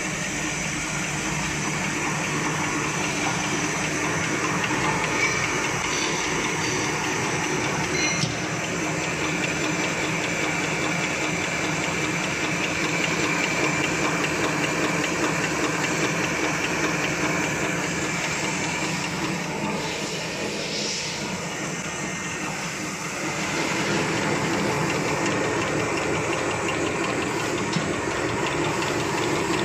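Napkin paper folding machine running steadily: a continuous mechanical whir with a steady hum in it as the paper web runs through the rollers, easing off slightly a little over twenty seconds in.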